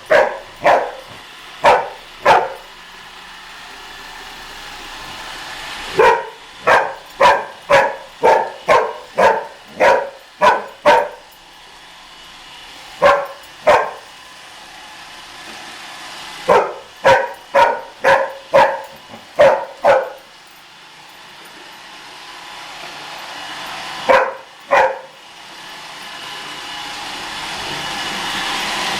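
Young dog barking at a Roomba robot vacuum in bursts of several barks, about two a second, with pauses between. Under the barks the vacuum's steady motor hum grows louder toward the end.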